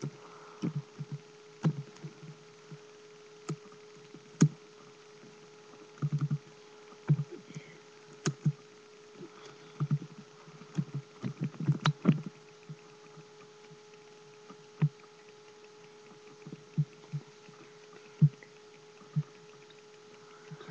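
Irregular soft knocks and clicks, like handling and bumping near the microphone, over a faint steady hum.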